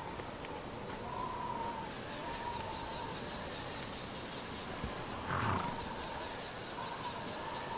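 Horses of a mounted army standing in the snow, over a steady hiss with a wavering whistle like wind. A horse snorts briefly about five and a half seconds in.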